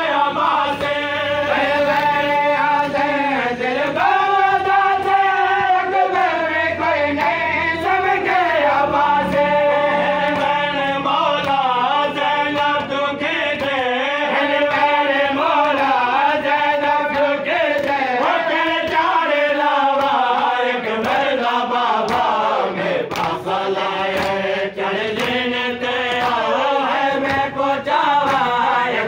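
Men's voices chanting a devotional recitation together, the melody rising and falling with no break.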